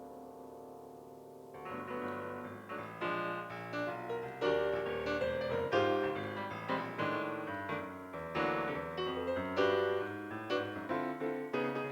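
Piano playing a slow ballad. A held chord fades for the first second and a half, then a flowing run of chords and melody notes begins.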